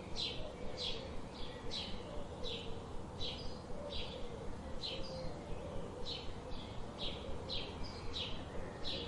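Birds chirping: short, sharp downward chirps repeating about twice a second.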